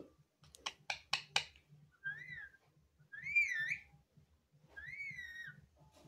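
Indian ringneck parrot giving four quick sharp clicks, then three separate whistled notes, each wavering up and down in pitch.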